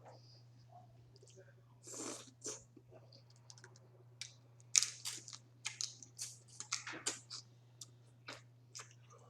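Close-up mouth and hand sounds of eating boiled crawfish: shells cracking and being peeled, with chewing and sucking. They come as a string of short crackles and clicks, the sharpest one just before five seconds in, over a steady low hum.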